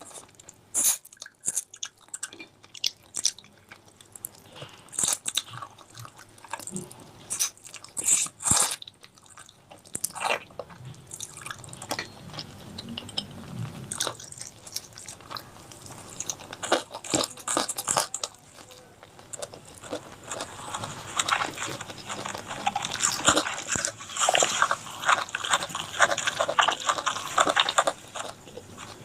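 Close-miked eating of chicken curry with rice: chewing and biting with many sharp wet clicks and smacks, becoming denser and more continuous over the last third.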